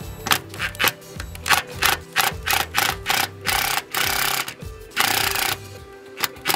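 Drill driving a self-tapping stitch screw with a gasketed washer through metal roof trim into the panel, run in many short trigger bursts with two longer runs in the second half as the screw is driven home.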